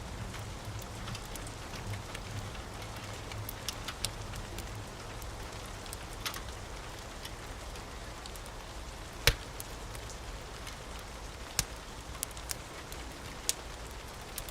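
Steady rain with a wood fire crackling, sharp pops now and then, the loudest about nine seconds in. A low rumble dies away in the first couple of seconds.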